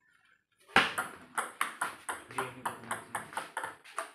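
Table tennis ball clicking back and forth between bats and table in a fast rally: a quick, even string of sharp clicks, about five a second, starting about a second in.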